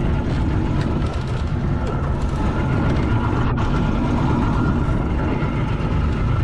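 Boat motor running steadily under way, a constant low drone with a faint steady whine over it.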